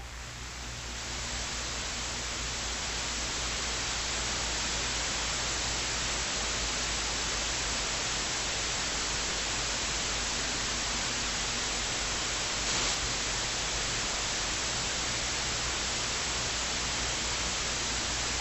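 Steady hiss of static noise, swelling a little over the first few seconds and then holding even.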